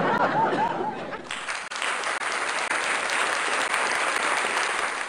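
Canned crowd applause: dense, even clapping that comes in about a second in and holds steady, laid on as a sound effect to mark a comedy punchline.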